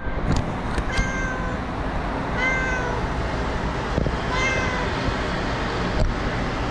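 Street cat meowing three times, short high-pitched meows that dip slightly at the end, over a steady background hiss, with a few sharp clicks.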